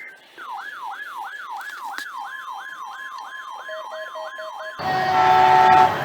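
Electronic siren wailing in quick, repeated downward sweeps, about three a second, with a steady tone joining partway through. About five seconds in it gives way to a louder, harsher burst of mixed tones.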